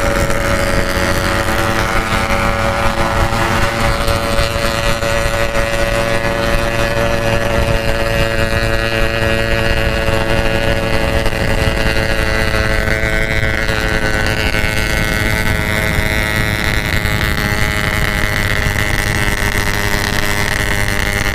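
Motorcycle engine running at a steady cruising speed, with wind rushing over the microphone.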